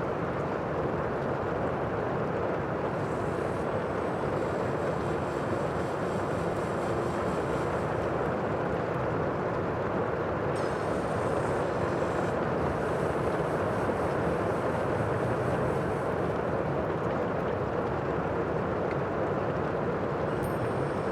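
Steady rushing noise of the sea, an even roar with no separate wave breaks standing out.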